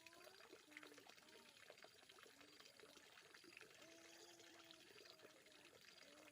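Faint steady trickle of running water, with small gurgling blips.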